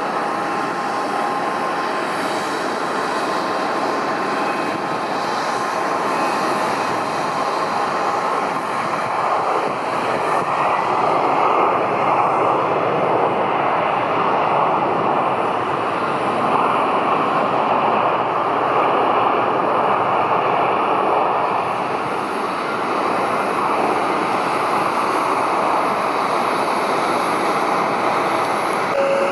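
Boeing 767-300ER twin-jet airliner landing: a steady jet engine roar with a faint whine, growing louder in the middle and easing slightly near the end.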